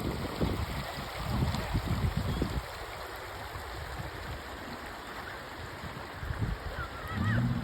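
River rapids rushing steadily, with choppy low thumps of water or wind against the microphone in the first couple of seconds, then a smoother flow.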